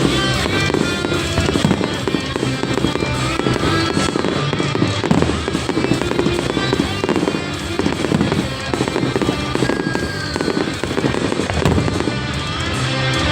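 Fireworks bursting in quick succession, many sharp bangs and crackles, over loud show music played through loudspeakers.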